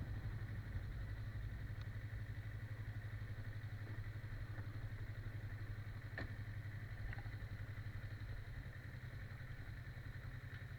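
Yamaha MT-25's parallel-twin engine running steadily at low revs, with an even, low pulse and no revving. There is one faint click about six seconds in.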